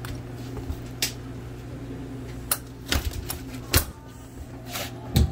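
Irregular sharp knocks and clicks, about half a dozen, the loudest a heavier thump near the end, over a steady low hum.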